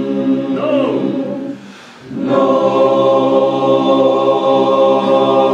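Barbershop chorus singing a cappella, holding a sustained chord in a tuning drill. The chord breaks off about a second and a half in, and after a short gap a new chord is held steadily.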